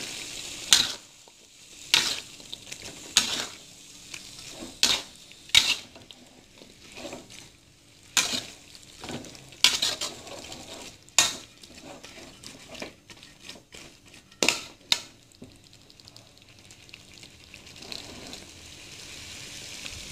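Metal spatula scraping and clacking against a metal wok while stir-frying carrot and cucumber strips in spice paste, over a low sizzle. The clacks come irregularly, about a second or two apart, and thin out after about 15 seconds.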